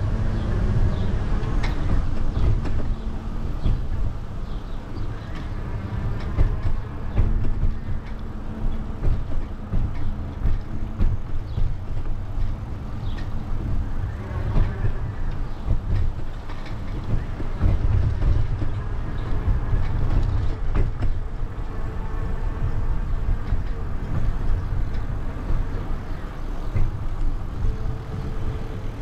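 Wind buffeting the microphone on a moving bicycle, a fluctuating low rumble over steady road noise.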